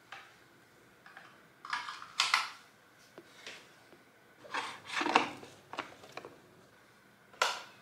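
Electric kettle being handled: a string of short plastic clicks and knocks as the kettle is lifted, tilted and set back on its base, in four small bursts, the loudest about two and five seconds in.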